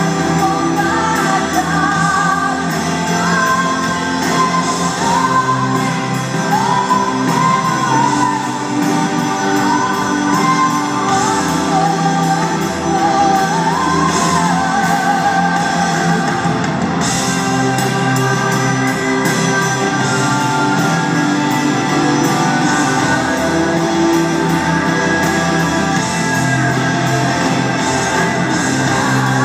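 Live contemporary Christian worship band: a woman sings the lead vocal with a wavering, ornamented line over drums and guitar. The voice is most prominent through the first half, and the band carries more of the sound toward the end.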